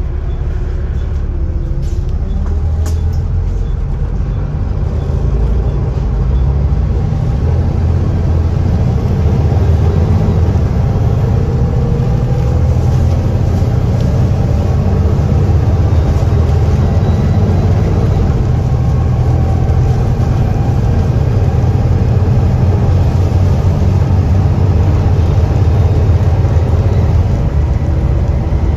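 Wright Eclipse Gemini double-decker bus heard from inside, its diesel engine pulling hard as the bus moves off and gathers speed. A whine rises in pitch over the first dozen seconds, with a few clicks about two to three seconds in, and the engine settles into a steady drone.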